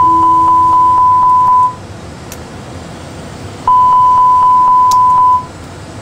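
Airbus A320 cockpit warning tone sounding after a dual engine flameout: a steady high tone lasting about two seconds, heard twice about four seconds apart, over the steady hum of the cockpit.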